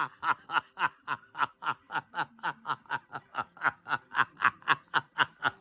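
Snickering laughter: a rapid, evenly repeated run of short 'heh' syllables, about four a second, each falling in pitch.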